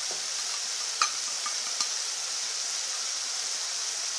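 Onions, tomatoes and fenugreek leaves frying in oil in a metal kadai, a steady high sizzle. A sharp click about a second in and a fainter one shortly after.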